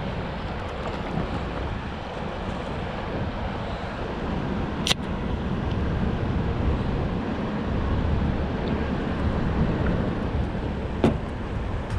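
Steady wind rumble on the microphone outdoors by the river, broken by two sharp clicks, one about five seconds in and one near the end.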